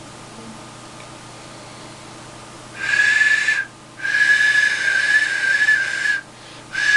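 Handmade clay duck whistle blown three times, starting about three seconds in: a steady high note with a breathy hiss, the longest blow about two seconds. It is being tried out while its air channel is being cut and adjusted.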